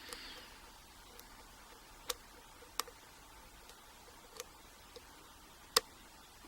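Steel lock pick clicking against the pin stacks inside a Yale padlock's pin-tumbler core during single-pin picking: a handful of faint, sharp, irregular clicks, the loudest one near the end.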